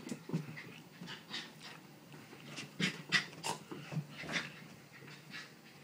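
A pet dog panting in short, irregular breaths.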